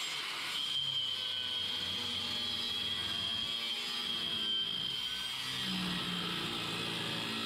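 Angle grinder with a cut-off disc cutting through square aluminium tube. Its motor makes a steady high whine over a gritty cutting hiss.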